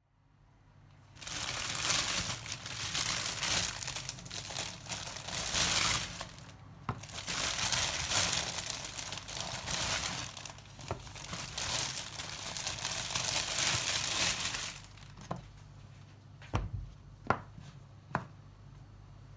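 Close crinkling and rustling of something being handled, which stops about fifteen seconds in and is followed by a few light taps.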